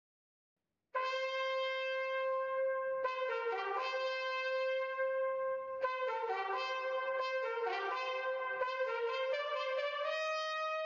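Silence for about a second, then brass-led background music, trumpet-like, playing held notes that shift every few seconds.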